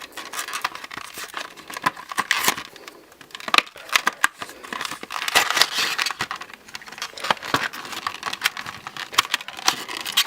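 Phone-case packaging being handled and pulled open by hand: irregular crinkling and rustling with many sharp clicks and crackles, as the packaging resists opening.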